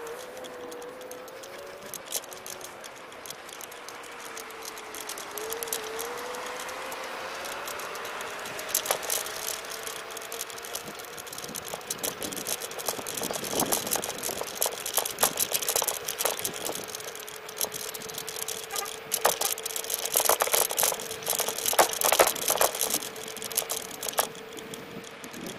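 Electric scooter riding: a thin motor whine that wavers and climbs in pitch, then holds steady, with the scooter rattling and knocking over bumps in the road, more often in the second half.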